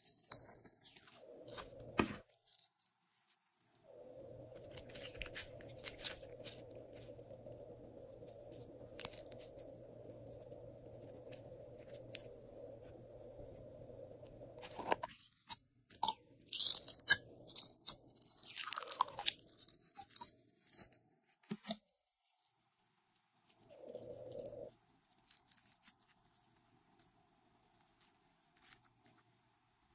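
Clear glossy slime being pulled from a plastic tub and squeezed by hand, giving sticky squishes and small crackling pops, with the plastic containers knocking and clicking now and then. The crackling is loudest a little past the middle.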